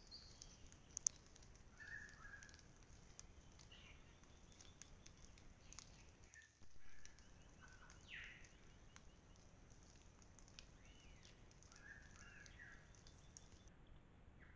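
Faint, scattered bird calls, short chirps every couple of seconds, over the steady hiss of a trail camera's microphone, with a few faint clicks.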